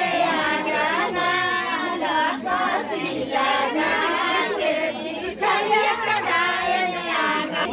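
A group of women singing a traditional wedding song (vivah geet) together, several high voices at once with no instruments heard.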